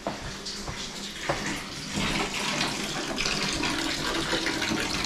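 A few light knocks, then a water tap opens about two seconds in and water runs steadily, growing a little louder: the newly repaired copper supply line being flushed.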